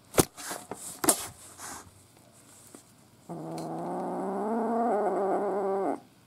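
A kitten about seven weeks old spits sharply twice, then gives a low, wavering growl of nearly three seconds that stops abruptly: a frightened kitten's defensive warning.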